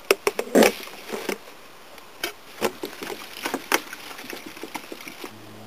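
Large plastic water bottle handled by hand: irregular clicks and crackles of the thin plastic, the strongest about half a second in. A steady low hum starts near the end.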